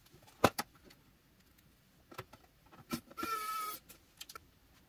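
Clicks and knocks of a sheet-metal power-supply case being handled and fitted with screws, played back at four times speed. About three seconds in comes a short, high, steady whine from a small electric screwdriver driving a case screw.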